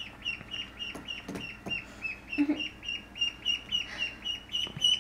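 Ducklings peeping: a steady run of short, high peeps, about four a second.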